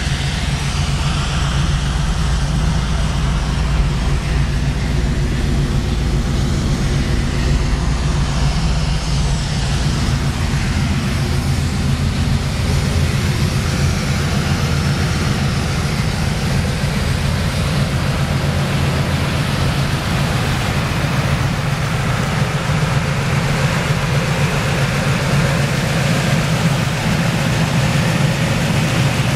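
1970 Chevrolet Camaro Z28's V8 engine idling steadily.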